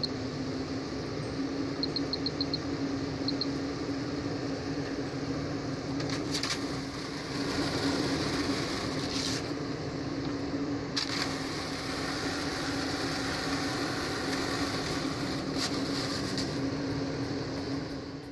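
Maxxfan Deluxe roof vent fan running with a steady motor hum and rush of air, showing that it works after installation. Its control panel beeps in short runs in the first few seconds, once and then four quick beeps and one more, as its buttons are pressed, and the fan gets a little louder about seven seconds in.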